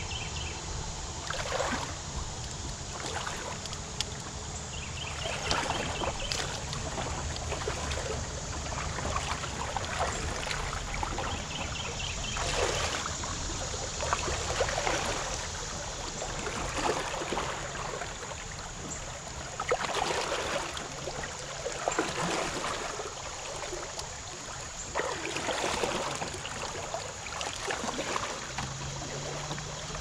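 Shallow river water splashing and swirling around a person's legs as he wades and guides a canoe against the current, with louder splashing surges every few seconds over the steady flow. A short high chirping trill comes three times in the first half.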